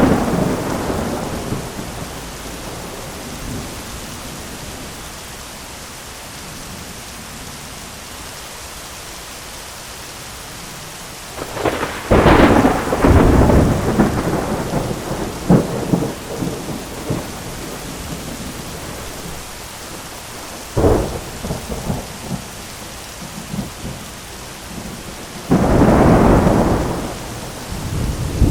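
Steady heavy rain falling on an umbrella, with thunder over it: a rumble dying away at the start, a loud crack and rumble about twelve seconds in, a sharp single crack a little past twenty seconds, and another rumble near the end.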